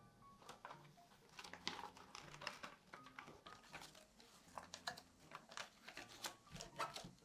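Faint rustling and crinkling with soft irregular taps: a baking liner sheet being folded and pressed into the corners of a square metal cake pan.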